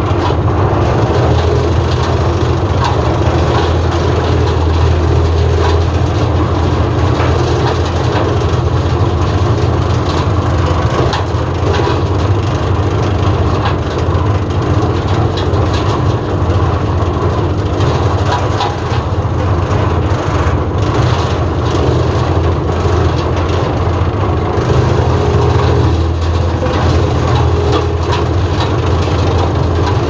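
Farmi CH 160F twin-blade disc wood chipper, driven off the PTO of a minitractor's Lombardini three-cylinder diesel, running steadily while it chips branches. The engine drone carries on underneath, with cracking and crunching of wood, thickest through the middle.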